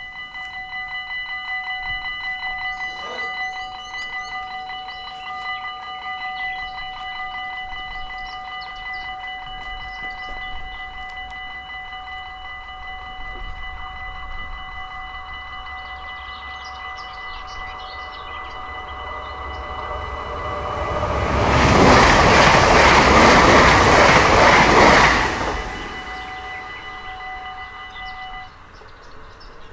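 Dutch level-crossing warning bells ringing rapidly and without a break. A train passes about three-quarters of the way through, a loud rush of wheel and rail noise lasting about four seconds that drowns the bells. The bells stop shortly before the end.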